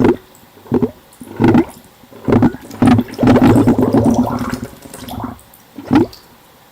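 Air blown through a siphon tube into a bowl of water, heard from a latex-covered microphone under the water: short bursts of bubbling at irregular intervals, with one longer stretch of bubbling around the middle. The bubbling dies away about six seconds in.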